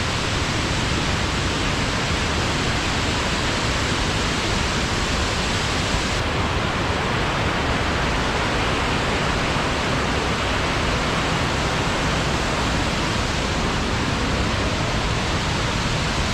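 Panther Creek Falls rushing, a loud, steady wash of falling water. The highest part of the hiss softens about six seconds in, and the sound cuts off sharply at the end.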